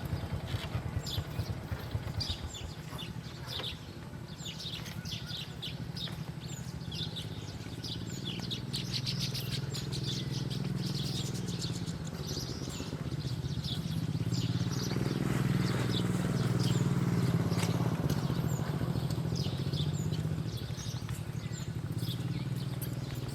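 Small birds chirping in quick, short notes, over a steady low drone of a distant motor vehicle that swells in the second half and then fades.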